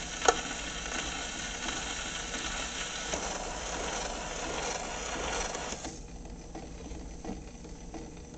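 Acoustic wind-up gramophone's steel needle running on the shellac record after the song has ended: steady surface hiss with a sharp click just after the start and scattered soft ticks. About six seconds in the hiss cuts off as the soundbox is lifted from the record, leaving a few faint ticks.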